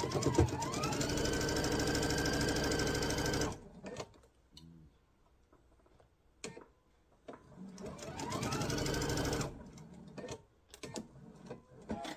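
Electric sewing machine stitching a seam in two runs: each time the motor whines up in speed, holds steady, then stops, the first run about three and a half seconds long and the second about two. A few small clicks and taps come between the runs.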